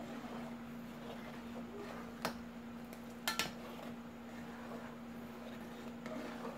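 A long metal spoon stirring a liquid agar (gulaman) mixture in an aluminium pot, clinking against the pot once about two seconds in and twice in quick succession a second later. A steady low hum runs underneath.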